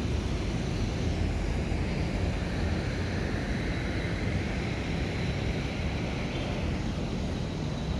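Steady city traffic noise: a continuous low rumble of vehicles on a busy road, with a higher hiss that swells in the middle and eases off near the end.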